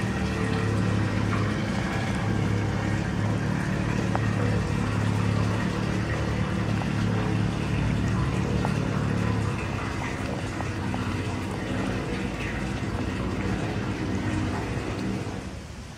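A steady low hum, a little quieter from about ten seconds in, with a few faint clicks.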